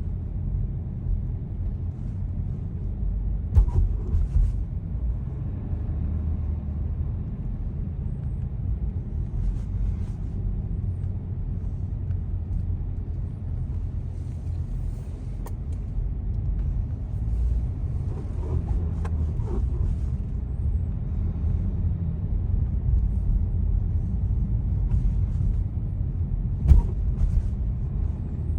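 Audi A6 allroad driving over speed bumps: a steady low rumble broken by a few short, sharp knocks, the loudest about three and a half seconds in and again near the end. The knocks are the noise the owner is chasing when the car crosses the bumps.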